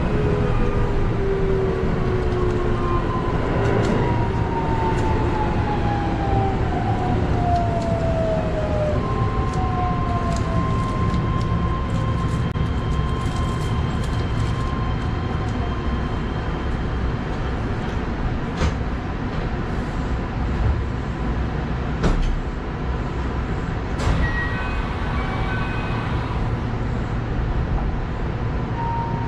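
Keihan electric commuter train braking into a station, heard from the cab: its motor whine falls in pitch over the first several seconds and settles into a steady tone as it slows, over the rumble of the wheels on the rails. A few sharp clicks come in the second half as the train draws to a stop.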